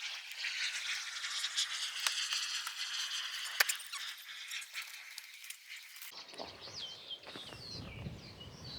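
A steady rasping scrape for about six seconds that cuts off suddenly, followed by birds chirping.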